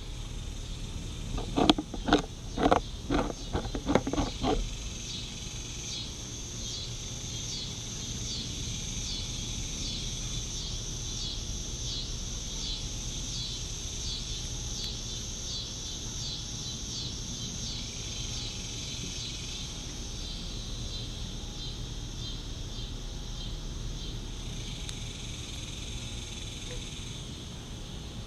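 Cottontail rabbit crunching a piece of carrot close to the microphone: a quick run of loud bites over the first few seconds. After that, insects chirp steadily at about two chirps a second.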